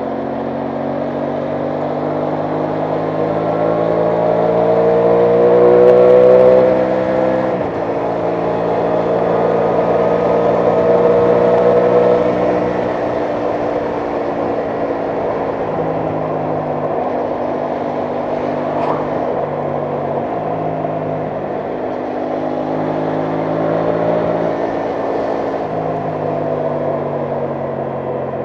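Aprilia Tuono 660 Factory's parallel-twin engine accelerating, its pitch rising and then dropping sharply at an upshift about seven seconds in. It pulls again in the next gear, then eases off to a steadier cruise with a few small dips in pitch.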